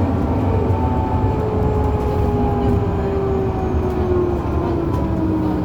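Bus drivetrain rumbling with a whine that slowly falls in pitch over several seconds as the bus slows, the odd brake-time whine this bus is noted for.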